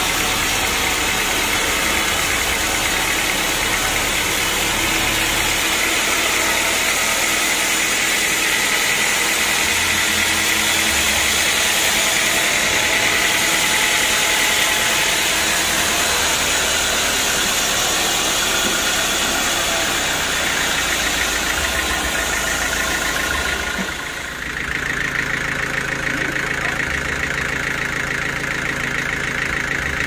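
Band sawmill running, its blade cutting lengthwise through a large mahogany log with a steady, noisy whine. About 24 seconds in the sound changes to a steadier machine hum with a strong high whine.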